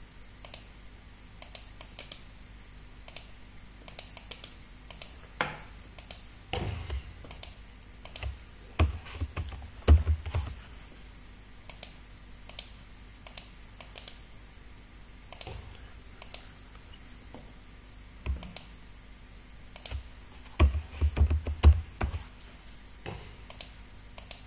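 Irregular clicking of a computer keyboard and mouse, with a cluster of dull low thumps around the middle and another near the end.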